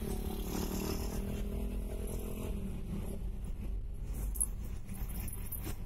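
Car engine and road noise heard from inside the cabin while driving: a steady low hum.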